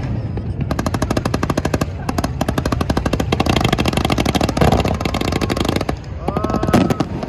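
Fireworks crackling: a rapid, dense string of sharp bangs, many each second, for about five seconds, thinning to a few scattered pops near the end.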